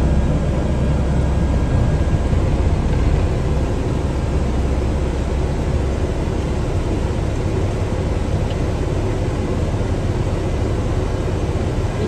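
A vehicle engine running with a steady low rumble, heard from inside the cab, a little louder in the first few seconds.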